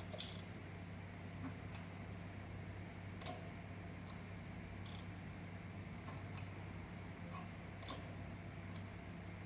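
Heavy-duty leather sewing machines driven by servo motors at their lowest speed, stitching very slowly: a faint, steady low hum with soft, irregular clicks and ticks from the stitching mechanism every second or so.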